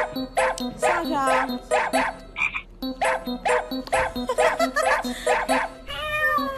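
Background music with a steady, quick beat of about three notes a second, with a few gliding, cry-like sounds over it, about a second in and near the end.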